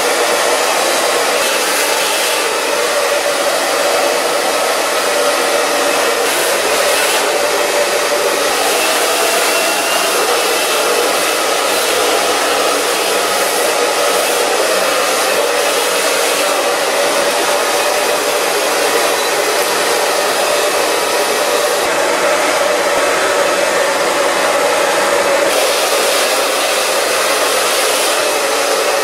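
Handheld hair dryer running steadily, a continuous rush of air with a faint motor hum, blow-drying wet hair over a round brush.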